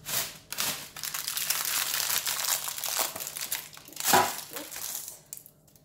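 Baking paper crinkling and rustling as a baked loaf cake is lifted out of its tin by the paper lining, with a louder crackle about four seconds in.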